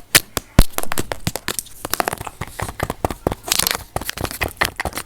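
Rapid, irregular clicks and crackles close to the microphone, with one heavier knock about half a second in.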